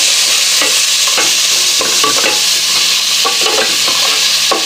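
Diced carrots and green beans sizzling in hot oil in an aluminium pot, with a spoon stirring and scraping through them in short repeated strokes.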